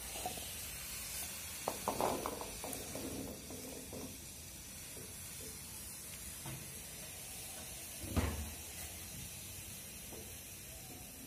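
Star gooseberries tipped from a glass bowl into boiling sugar-and-chilli syrup in a nonstick pan: a quick run of small knocks and splashes about two seconds in, over the steady hiss of the bubbling syrup. One louder knock comes later.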